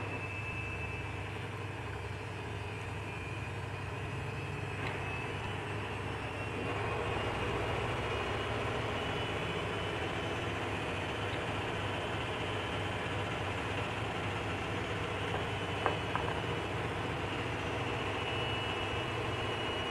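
Steady machine hum with a thin high whine, getting a little louder about six and a half seconds in. One short sharp click about three-quarters of the way through.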